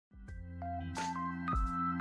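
Background music starting up: a rising line of single notes over a sustained low chord, with a few sharp percussive hits.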